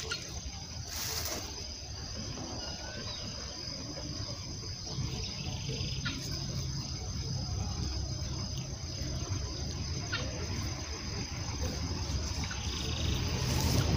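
Steady high-pitched chorus of insects at a pond's edge, over a low rumble that grows louder near the end, with a few faint clicks.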